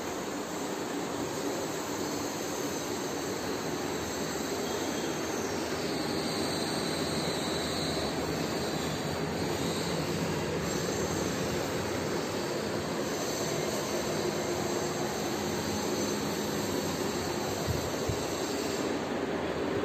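A steady rushing noise, even throughout, with a couple of faint knocks near the end.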